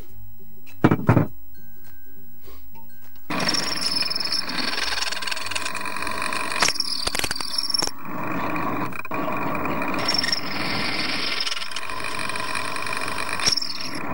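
Bench drill press boring through a metal angle bracket, starting about three seconds in: a dense grinding noise with a high squeal that comes and goes as the bit cuts. Background music plays throughout, with two sharp knocks about a second in.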